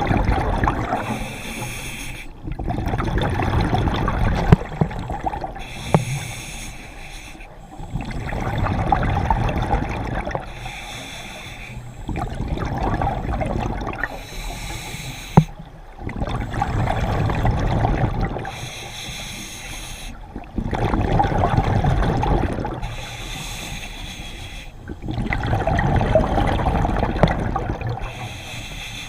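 Scuba diver breathing through a regulator underwater: a slow, repeating cycle of hissing inhalations and bubbling exhalations, about one breath every four seconds.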